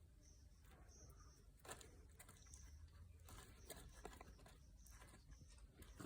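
Near silence: a faint low hum, scattered light clicks and taps, and short faint high chirps every so often.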